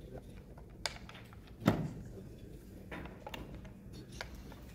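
Chess pieces clicking and knocking as hands feel them and move them on a wooden tactile board with pegged pieces and raised squares, with one louder knock about a second and a half in.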